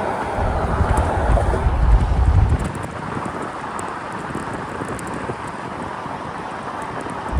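Steady road and wind noise of a car moving at speed, heard from inside the cabin. A heavy low rumble for the first two and a half seconds, then a lighter, even hiss.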